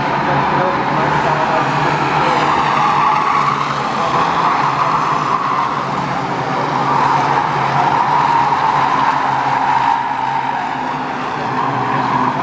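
The engines of a pack of Ministox stock cars, small Mini-bodied race cars, running together as they circle the oval. They make a steady blended drone with a higher engine note on top. It dips a little near the end.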